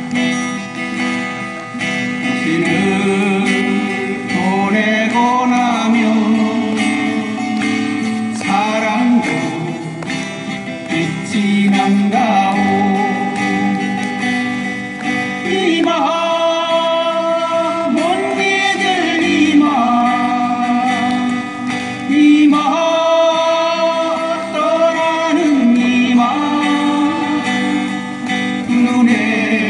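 Acoustic guitars playing together as an ensemble while a song is sung over them, the voice moving in held phrases, amplified through PA speakers.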